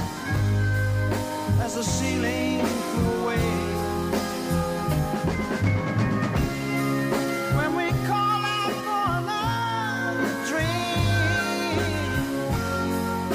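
A rock song playing, with a singer's voice over held bass notes and a band.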